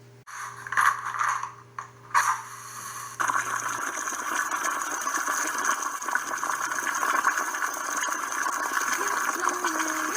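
Water running steadily, starting about three seconds in after a few short noisy bursts.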